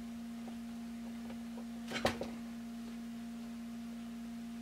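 A steady electrical hum, with a few faint ticks and a short cluster of small clicks about two seconds in, from tools and small parts being worked at an RC crawler's axle.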